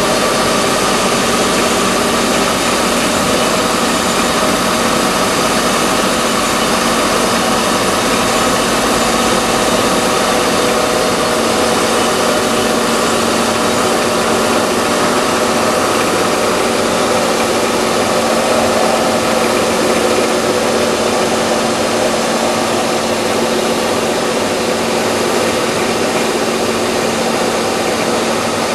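Car engine idling steadily, with a constant whine held over the running noise.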